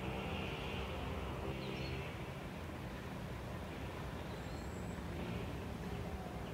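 Outdoor ambience: a steady low rumble with a faint droning hum under it, and a couple of faint high chirps.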